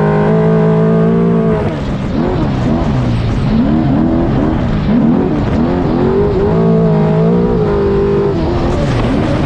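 Trophy truck's V8 engine running hard at high revs. It holds steady at first, then about two seconds in the revs drop and it sweeps up and back down again and again with the throttle, holds high once more, and dips again near the end. Tyre and gravel noise runs underneath.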